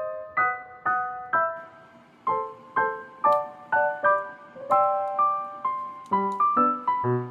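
Background piano music: a light melody of single struck notes, about two a second, with lower bass notes joining near the end.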